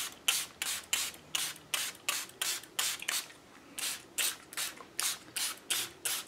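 Small fine-mist spray bottle of water pumped in quick short sprays, about three a second with a brief pause about halfway through, each spray a short hiss. It is wetting freshly sprayed mist colours on watercolour paper so the colour spreads.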